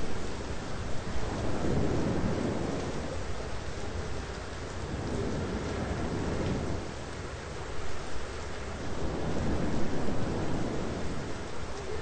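Thunderstorm: steady rain with rolling thunder rumbling low, swelling up twice.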